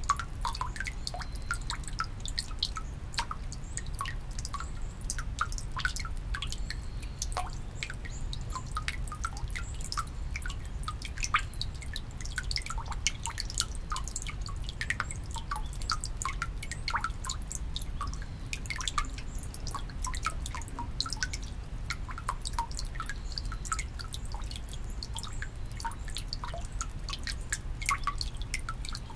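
Water dripping and trickling into the stone basin of a Shinto shrine's temizuya (purification fountain): a dense, irregular patter of small plinks and splashes over a steady low rumble.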